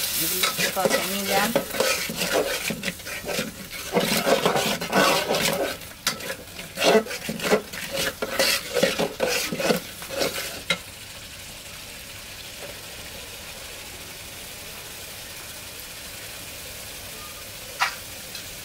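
Spice paste frying with chicken pieces in an aluminium pot, sizzling while a metal spatula stirs and scrapes against the pot. The stirring stops about ten seconds in, leaving a steady, quieter sizzle, with one short tap near the end.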